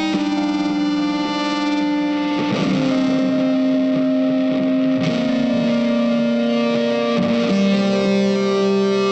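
Background music: electric guitar with distortion effects, holding long sustained notes that change pitch every couple of seconds.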